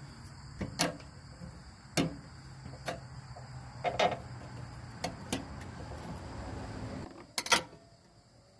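Scattered sharp metal clicks and knocks from working loose the pins and clips that hold a riding mower's deck, the loudest a quick cluster near the end. A low hum runs underneath and stops about seven seconds in, and crickets chirp steadily in the background.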